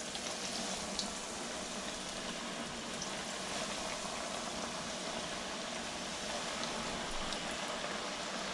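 Seasoned fish pieces frying in hot oil at about 350 degrees: a steady sizzle and bubbling with a few faint crackles.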